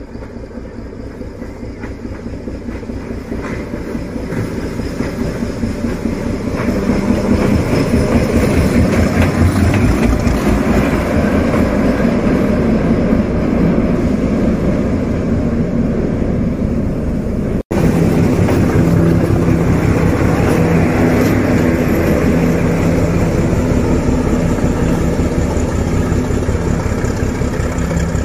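D12E diesel-electric locomotive running with a train, its engine hum steady under the noise of the wagons on the rails. It grows louder over the first eight seconds or so, then holds steady. The sound drops out for an instant about two-thirds of the way through, then resumes unchanged.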